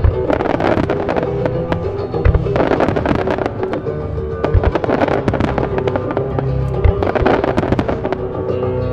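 Aerial fireworks shells bursting with many sharp bangs, over loud music accompanying the display. A few deeper booms come about two seconds apart.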